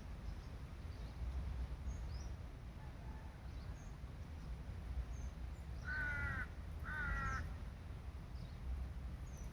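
Two harsh bird calls about a second apart, near the end, over a low steady rumble, with faint small-bird chirps.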